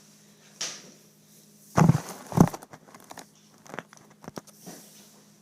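A surprise egg being unwrapped by hand: its wrapper crinkles and tears, with scattered small clicks and two loud knocks about two seconds in.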